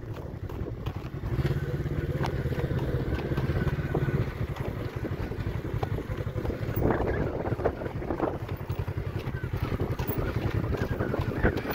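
Engine of a Polaris RZR four-seat side-by-side running at low speed as it crawls over rocks, a steady low pulsing drone.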